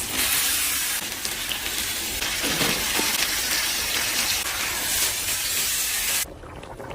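Food sizzling in hot oil in a pan: a steady, loud hiss that cuts off abruptly about six seconds in, followed by a few faint clinks.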